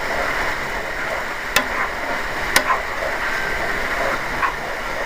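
Sausage, onion, mushroom and spinach mixture sizzling steadily in a frying pan, with two sharp clicks about a second apart, as of a utensil against the pan.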